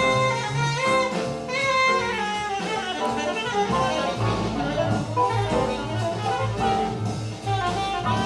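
Jazz playing through a pair of Dynaudio Excite X14 bookshelf speakers. A held melody line sits over a pulsing bass line.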